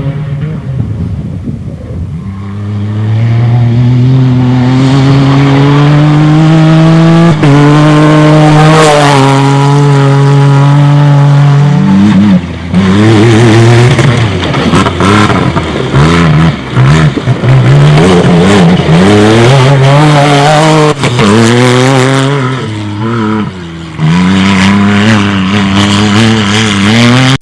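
Rally car engine under hard acceleration: the revs climb steadily, drop at a gear change about seven seconds in, and climb again; from about twelve seconds on the revs rise and fall quickly over and over with repeated shifts and lifts off the throttle.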